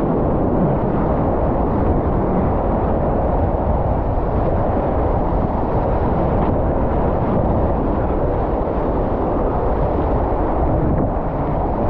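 Whitewater rapids rushing loud and steady around an inflatable kayak as it runs the rapid, a dull, heavy rumble with little high hiss.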